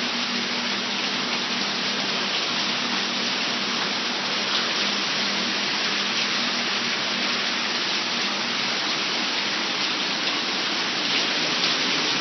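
Heavy rain mixed with hail pouring down steadily, with a few sharp ticks of hailstones striking hard surfaces.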